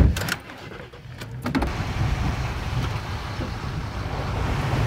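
A sharp knock at the very start and a few clicks, then a truck pulling away along a rough dirt track, heard from inside the cab: a low engine and tyre rumble that builds after about a second and a half and holds steady.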